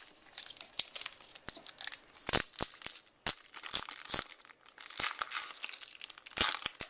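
A baseball card pack wrapper being crinkled and torn open by hand: irregular crackling and tearing with sharp clicks, loudest about two and a half seconds in and again near the end.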